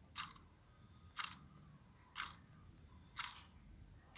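Short, sharp, hissy clicks repeating evenly about once a second, over a faint steady high tone.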